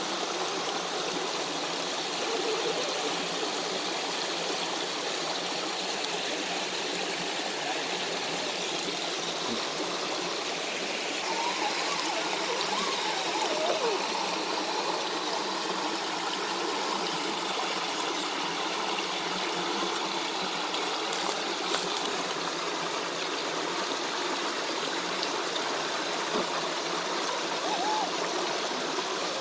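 Creek water rushing steadily over a small rocky cascade.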